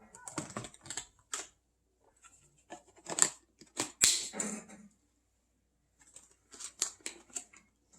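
Hands handling packaging and plastic parts: three bursts of sharp clicks and rustles, about a second in, near the middle, and near the end.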